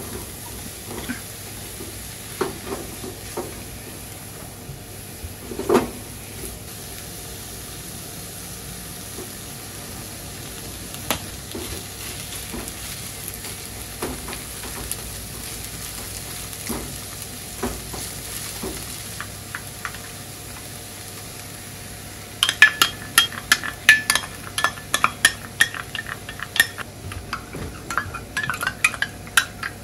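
Shrimp and chopped onion sizzling in a non-stick frying pan, stirred and scraped with a spatula, with scattered knocks of the spatula on the pan. About three-quarters of the way through, a quick run of sharp metallic clinks and taps begins as a small metal cup and utensil knock together over the pan while ketchup is added.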